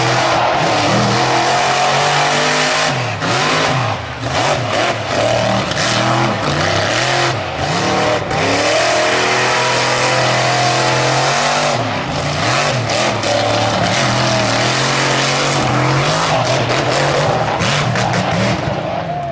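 Monster truck engine running hard, its revs repeatedly dropping off and climbing back as the driver works the throttle, with tyres churning dirt.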